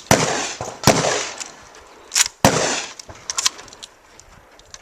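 Shotgun fired in quick succession: three loud shots with echoing tails in the first two and a half seconds, then lighter clicks and clacks.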